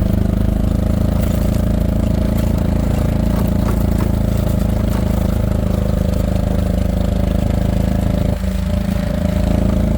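Golf cart engine running steadily at an even pace, its note dipping briefly about eight seconds in.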